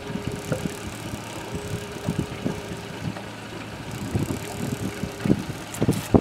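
A boat motor running steadily while trolling, with wind on the microphone and a scattered series of short knocks near the end.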